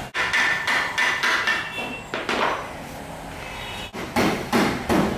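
Hammer blows in a workshop: a few scattered strikes, then a quick even run of about three blows a second near the end.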